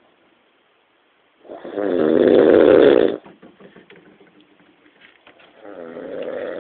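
Snoring: one loud, drawn-out snore of about a second and a half, then a faint crackling breath, then a second, softer snore starting near the end.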